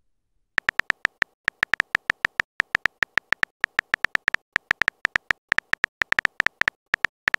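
Texting-app typing sound effect: a quick run of short, beep-like key clicks, one per typed character, about seven a second with a few brief pauses.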